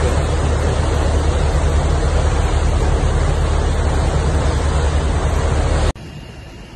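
Boat under way: a steady low engine hum under the rush of the wake and wind. It cuts off abruptly near the end to a much quieter steady running noise.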